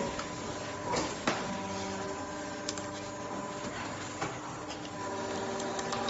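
Vertical injection molding machine for RJ45 cable connectors running with a steady humming tone that comes and goes, broken by a few sharp clicks, two close together about a second in.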